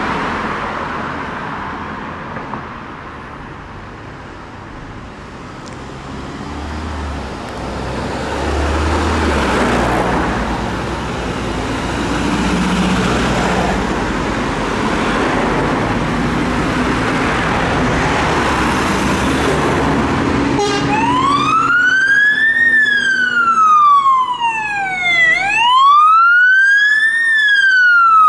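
Fire engine's engine and road noise, growing louder as it approaches. About twenty seconds in, its electronic siren starts wailing in slow rising and falling sweeps, one cycle roughly every four and a half seconds.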